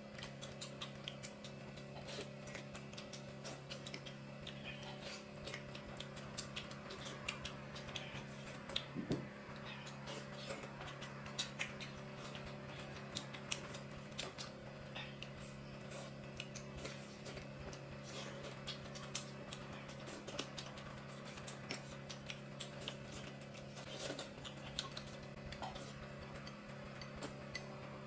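Close-up eating sounds: chewing and mouth noises while gnawing a braised pork knuckle and eating noodles, with small irregular clicks of chopsticks against a ceramic bowl. A steady low hum runs underneath.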